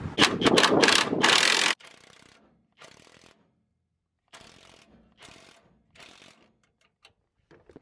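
A cordless power driver runs a bracket bolt in for just under two seconds and stops abruptly. After that a wrench ratchets in five short strokes as the 9/16 frame-rail bolts are tightened.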